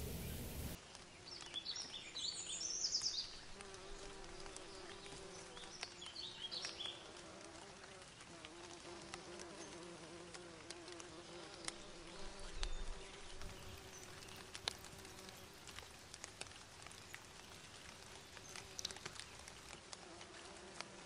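Flying insects buzzing, a steady droning hum that wavers in pitch, with a few short high chirps in the first several seconds.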